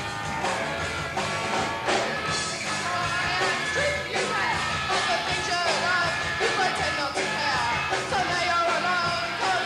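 Punk rock band music playing, with a singer's voice in the mix from about four seconds in.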